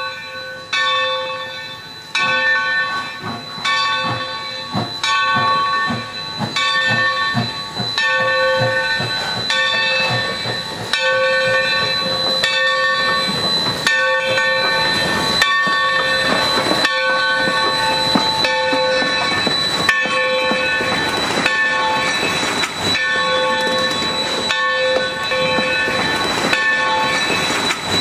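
Steam locomotive bell ringing steadily, one stroke every second or so, as the locomotive moves slowly. Low exhaust chuffs are heard in the first few seconds, and a stretch of hiss comes midway.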